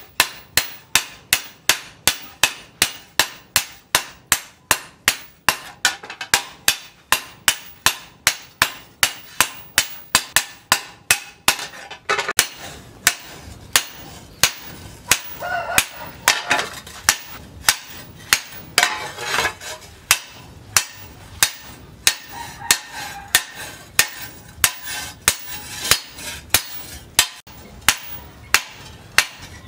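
Hand hammer striking a hot steel blade cut from a tractor disc plough on a round steel post anvil: a steady run of sharp metal-on-metal blows, about two a second at first and a little slower later on.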